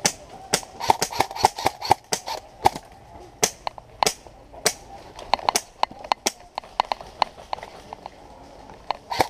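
Airsoft gunfire across the field: irregular sharp pops and snaps, some in quick runs, with no steady rhythm.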